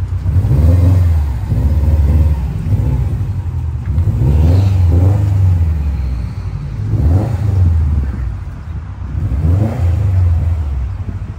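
Subaru WRX STI's turbocharged 2.5-litre flat-four being revved in about five separate surges, each rising in pitch and dropping back, as the car rolls slowly past.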